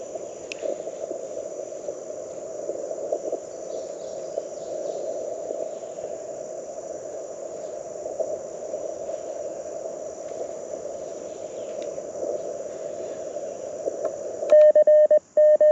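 Band noise from the LNR Precision Mountain Topper MTR4B receiver on the 30-meter band, heard through a small speaker and squeezed by the CW filter into a narrow, low rushing hiss with faint crackles. A steady high insect drone runs behind it. About a second before the end, loud Morse code sidetone beeps start: the operator keying the paddles.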